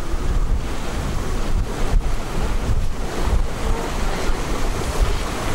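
Wind rumbling unevenly on the microphone aboard a sailing yacht under way, over a steady rush of wind and water.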